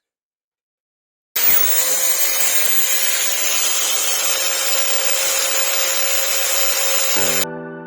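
A power tool running steadily: it starts suddenly about a second in, holds one steady note under a loud even noise, and stops abruptly near the end, when piano music comes in.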